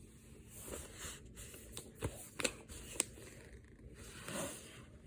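Faint handling noises: a few light clicks and taps of plastic movie cases being moved about, with a soft rustle near the end.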